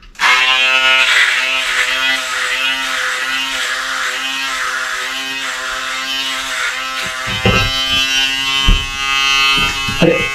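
Handheld electric shaver switched on and buzzing steadily as it is run over the cheek to cut short hairs, its hum wavering slightly in pitch as it is pressed and moved. A couple of low knocks come about three quarters of the way through.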